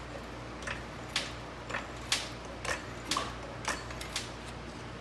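Short metallic ticking scrapes, about two a second, as the nut is worked onto the shock absorber's top stud at its upper mount, over a steady low hum.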